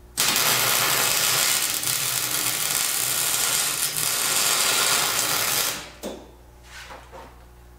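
MIG welding arc crackling loudly and steadily through one continuous bead of about five and a half seconds. It starts just after the start and cuts off sharply near the end, followed by a faint click.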